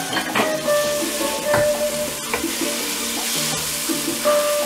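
Onion-tomato masala with freshly added ground spice paste sizzling in hot oil in a nonstick pot, while a wooden spatula stirs and scrapes it.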